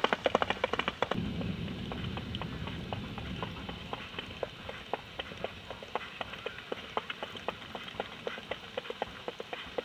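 Hoofbeats of an Icelandic stallion on a dirt track, mostly at the tölt: a quick run of sharp hoof clicks, several a second, with a low rumble in the first few seconds.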